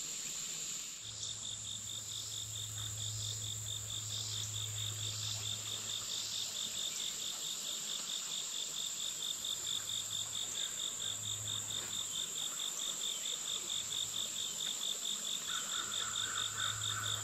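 Insects calling in summer woodland: a steady high-pitched drone with a rapid, even chirping of about four pulses a second over it.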